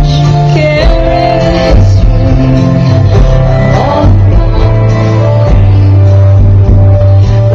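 Loud music with guitar over a steady bass line.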